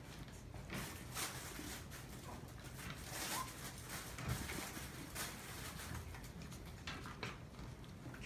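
Maltese puppies moving about on a fabric pad and floor: scattered soft rustles and light taps of small paws, with one brief faint squeak about three and a half seconds in.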